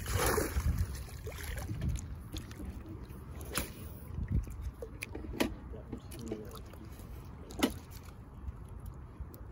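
Low wind rumble on the microphone, with three sharp clicks spread a couple of seconds apart.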